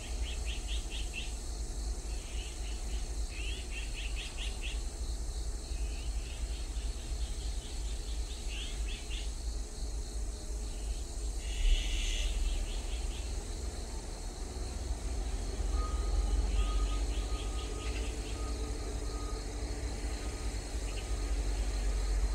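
Azure-winged magpies calling in short bursts of rapid chatter, repeated every few seconds, with one louder call about halfway through. Insects drone steadily behind them.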